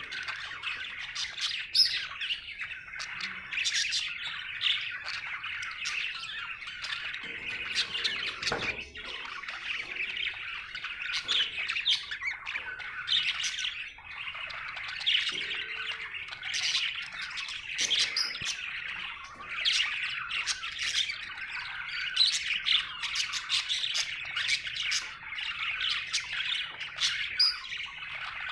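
Budgerigar chirping and chattering without a break: a steady warble with frequent short, sharp chirps over it.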